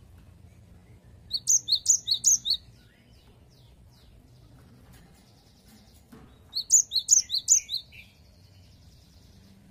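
Cinereous tit singing: two short bursts of a repeated high two-note 'wucit' phrase, each lasting about a second, the second coming some five seconds after the first.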